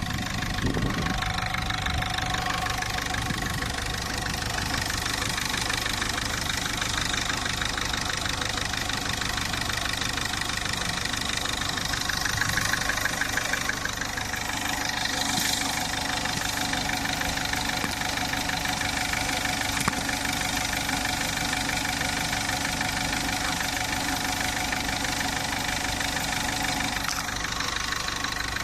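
Engine idling steadily with a fast, even, repetitive tick in its running: a weird engine sound.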